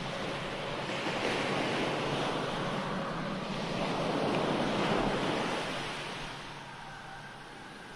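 Wind sound effect: a rushing noise that swells to a peak about five seconds in, then dies away.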